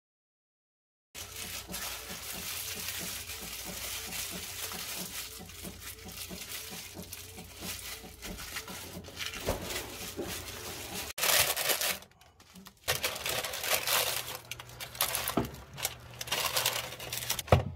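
Disposable plastic gloves crinkling as hands rub and turn a raw slab of pork belly, then rustling against a paper liner as the meat is laid in an air fryer basket, over a steady low hum. Silent for about the first second, with a brief drop-out about twelve seconds in.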